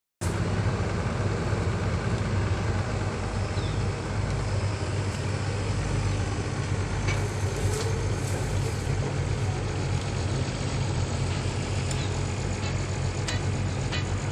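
Heavy diesel engine idling steadily, a low even rumble, with a few faint clicks and knocks.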